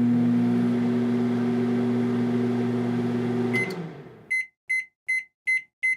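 Microwave oven running with a steady electrical hum. About three and a half seconds in, a short beep sounds and the hum dies away, followed by five quick beeps about 0.4 s apart: the end-of-cycle alert.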